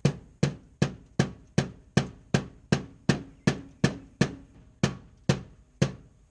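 Rubber mallet striking about fifteen times at a steady pace of roughly two and a half blows a second, knocking a turn-signal marker light into its tight rubber sealing ring.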